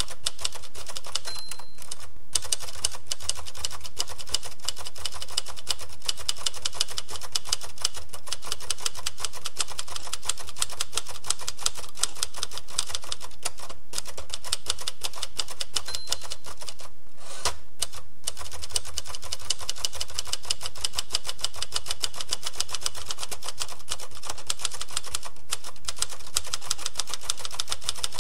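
Typewriter keys struck in a rapid, steady stream of clicks, broken by a few short pauses. A short bell-like ding sounds about halfway through.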